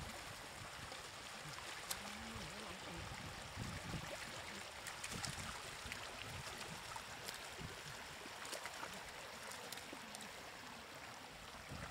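Water running steadily in a low hiss, with a few faint clicks.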